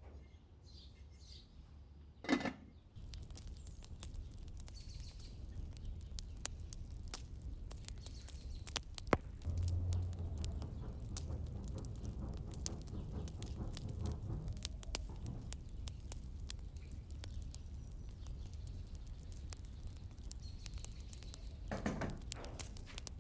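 Small charcoal fire crackling with scattered pops under an iron grate while it is fanned by hand, the air rumbling low. A clink of metal cookware about two seconds in, and near the end a metal pot set down on the grate.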